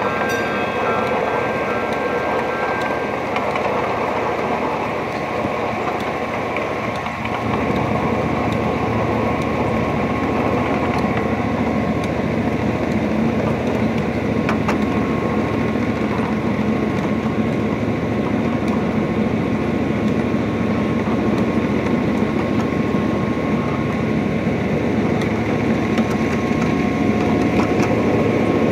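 Miniature ride-on train running along its track, heard from an open passenger car: a steady rumble and rattle of wheels on rail with faint scattered clicks, a little louder from about eight seconds in.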